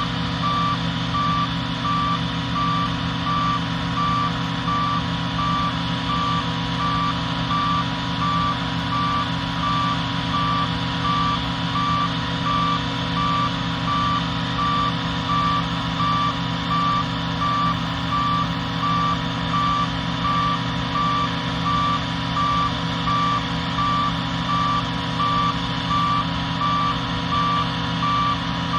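Combine harvester engine running steadily under load, with an electronic beeper sounding over it in a regular, unbroken series of short beeps.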